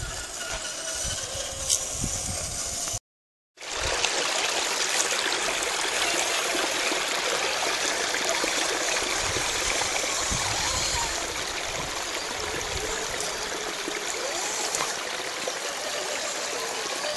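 Shallow creek running over rocks: a steady rush of water. The sound drops out completely for about half a second around three seconds in.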